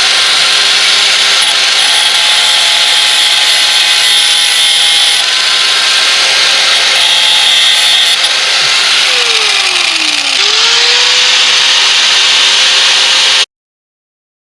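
A high-speed handheld power tool grinding to round off a freshly cut edge. Its motor pitch sags under load about nine seconds in and recovers, and the sound cuts off abruptly near the end.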